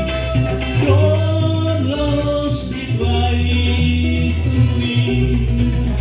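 Live keroncong ensemble playing: a singer's voice over plucked guitar-like strings and a steady plucked bass line.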